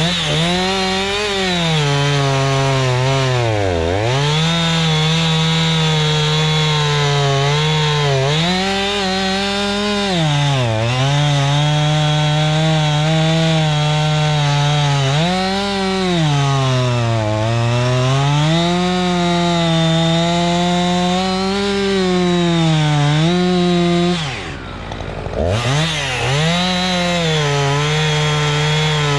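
Husqvarna 357 XP two-stroke chainsaw running at high revs while cutting oak logs into firewood. Its pitch sags and recovers several times, and near the end it drops briefly and revs back up.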